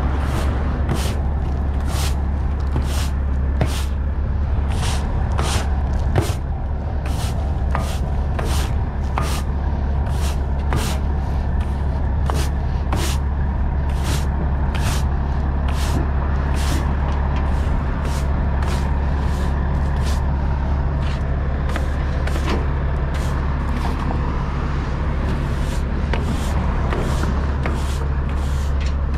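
Broom sweeping the wooden deck of a lowboy trailer in short, even strokes, about one and a half a second, over the steady low idle of a Kenworth T800's Caterpillar C15 diesel engine.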